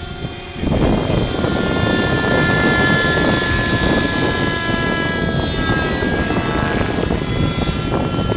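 Raptor 50 radio-controlled helicopter in flight: its nitro glow engine and rotors make a steady high whine over a loud rushing noise. The rushing comes in suddenly about a second in and holds.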